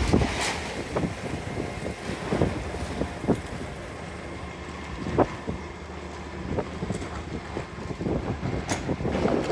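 A vehicle engine running low and steady, with irregular knocks and clanks over it.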